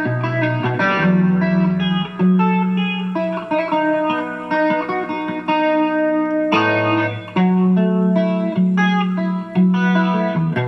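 Electric guitar played through an effects pedalboard: ringing chords and single notes with long sustain over a held low note, with a new chord struck every second or two.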